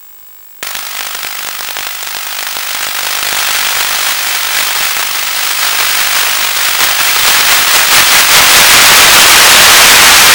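Dense crackling static from an analog 1.2 GHz FPV video receiver's audio channel, the noise of a weakening radio link. It starts suddenly about half a second in, grows steadily louder, and cuts off abruptly at the end.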